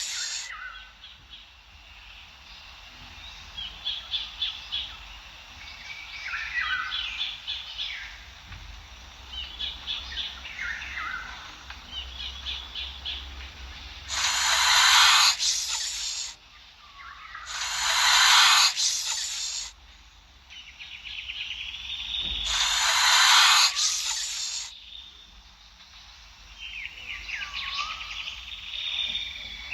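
A cobra hissing three times in the second half, each hiss a long breathy rush of about two seconds, over birds chirping in the background.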